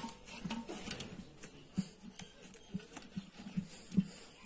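Hand pressing and patting rice-flour sarva pindi dough flat in an oiled metal pan: a string of soft, irregular pats, a few each second.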